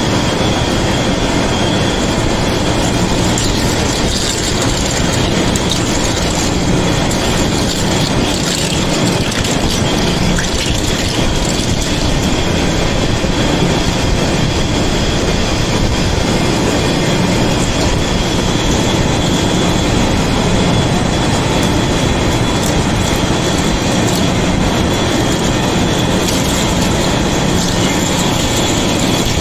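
Heavy-duty vertical lathe running, its cutting tool turning a metal workpiece: a loud, steady grinding machining noise with a thin high whine.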